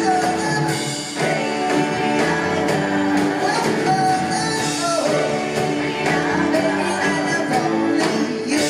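Live rock-and-roll band (drums, electric guitars) backing a female lead singer with backing vocals, playing at full level through the PA.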